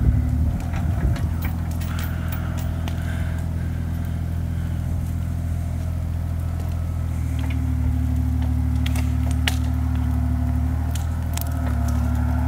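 Bobcat E35 mini excavator's diesel engine running steadily, its note shifting slightly about seven seconds in, with a few sharp clicks over it.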